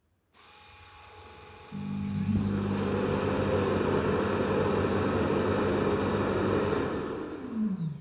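ECOVACS DEEBOT X8 PRO OMNI all-in-one station's suction motor auto-emptying the robot's dustbin into the station's dust bag. It kicks in about two seconds in, runs with a steady rushing whir, then winds down with a falling pitch near the end.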